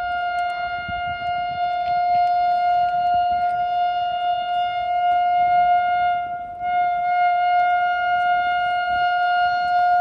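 WAP-7 electric locomotive's twin-tone air horn sounding one long steady note, dipping briefly about two-thirds of the way through before carrying on.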